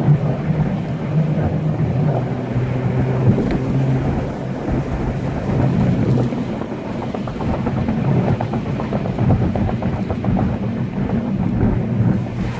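Car engine droning steadily under tyre and road noise while driving, heard from inside the cabin.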